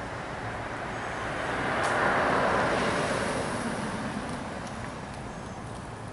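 A car driving past, its tyre and engine noise swelling up, loudest about two seconds in, then fading away over the next few seconds.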